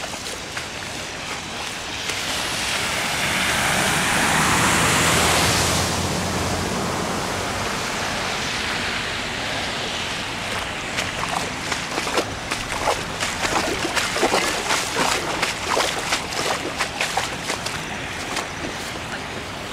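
Rushing floodwater: a steady noise of moving water that grows louder a few seconds in, with a low hum under the loudest part. In the second half many short, irregular crackles ride on top of it.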